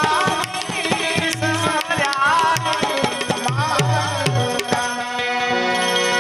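Indian folk music led by tabla, with sharp strokes and low bass-drum strokes that glide in pitch, under a wavering melody line.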